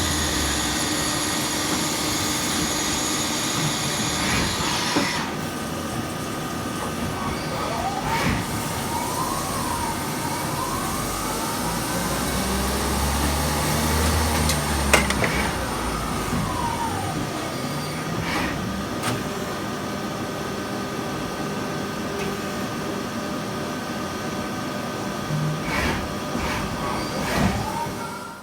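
Mazak QT100MSY CNC lathe running. A steady high whine stops about five seconds in, then motor whines rise and fall in pitch as the machine changes speed, with a few sharp clicks.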